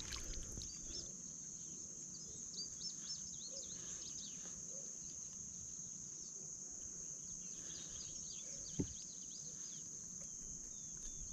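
Steady, high insect drone with small birds chirping quickly over it, and a single short knock about nine seconds in.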